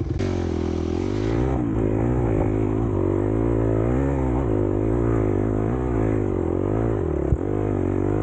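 Dirt bike engine revving up and down as the throttle is worked on a steep dirt hill climb, with one sharp knock about seven seconds in.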